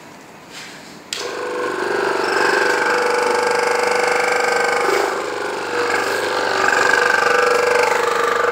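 Keiser KT17999 crack-injection pump switched on about a second in, its electric motor and pump starting up and then running with a steady whine of several tones, pumping oil to check the recycling unit. The sound dips briefly about midway and comes back up.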